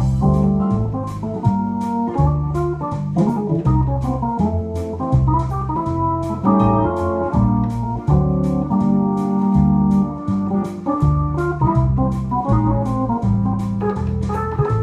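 Jazz organ playing in swing style: held chords over a bass line that moves to a new note about twice a second, with a steady ticking beat.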